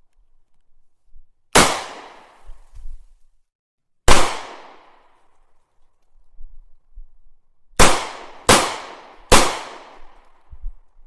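Gunshots: five single sharp shots, each with a short fading echo. One comes about one and a half seconds in and another about four seconds in, then three follow in quick succession about eight to nine and a half seconds in.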